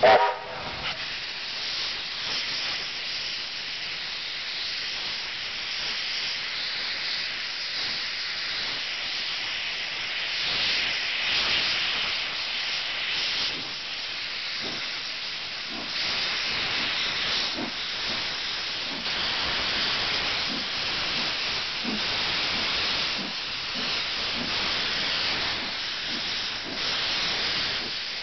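NZR A class steam locomotive A 428 gives a short loud toot on its whistle right at the start, then steam hisses continuously and rises and falls as the engine moves off. The ground-level steam cloud points to steam venting from the open cylinder drain cocks.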